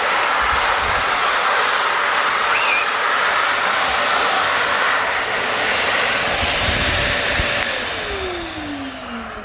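A 1200-watt drum vacuum cleaner running at full power with a steady loud rush of air; about eight seconds in it is switched off and the motor winds down, its whine falling steadily in pitch.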